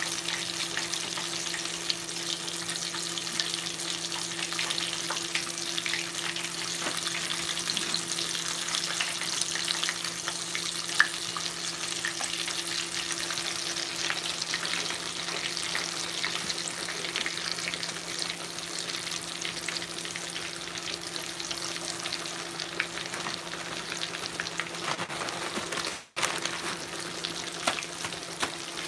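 Catfish pieces deep-frying in a pot of hot oil: a steady sizzle with constant crackling and popping over a faint low hum. A single sharp click comes about eleven seconds in, and the sound drops out for an instant near the end.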